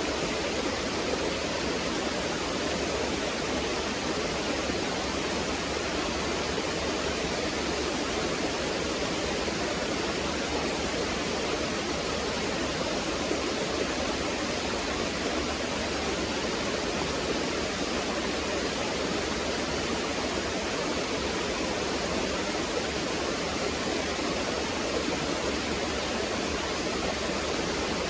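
Small waterfall pouring into a stream, a steady gurgling rush of water.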